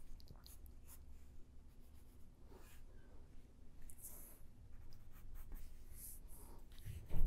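Prismacolor colored pencil strokes scratching faintly on paper as a rendering is shaded with hatching, with a brief low thump just before the end.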